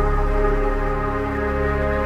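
Ambient background music: sustained chords held steady over a low bass drone.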